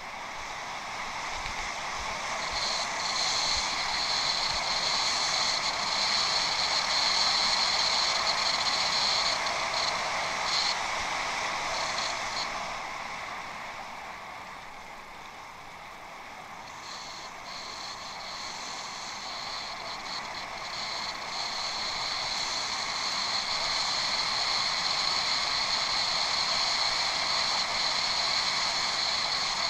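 Bicycle riding off-road: a steady hiss of rolling and drivetrain noise that swells, eases off about halfway through, then builds again.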